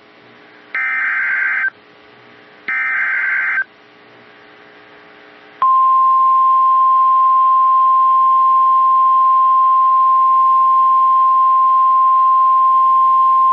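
The last two of three Emergency Alert System (SAME) header data bursts, each a harsh buzzing screech about a second long. About five and a half seconds in, a single loud, steady high-pitched tone begins: the NOAA Weather Radio warning alarm tone that announces a new warning.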